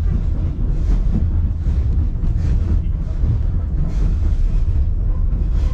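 Narrow-gauge passenger train car running along the track: a steady, loud low rumble of wheels on rails, with faint scattered clicks and rattles through it.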